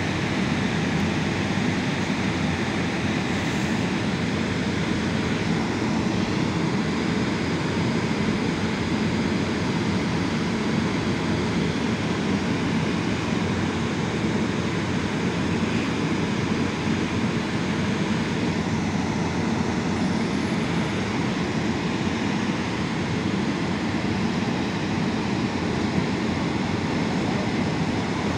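Passenger train hauled by an EP07 electric locomotive, giving a steady rumble that holds at the same level throughout.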